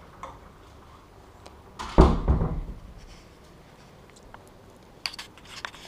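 A single heavy, low thud about two seconds in, dying away over about half a second, then a few light clicks and taps near the end, in a small room.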